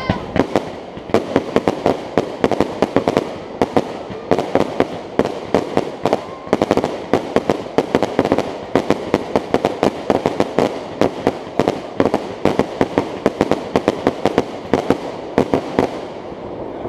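Fireworks display: a rapid barrage of aerial shell bursts, several sharp bangs a second, thinning out near the end.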